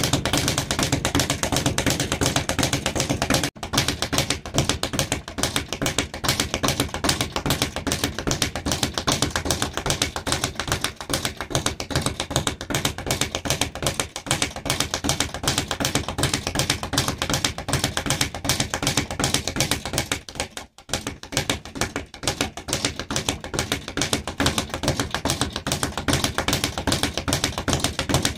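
Speed bag punched in a fast, steady rhythm, the bag rattling against its rebound platform in a continuous run of rapid taps, with two very short breaks.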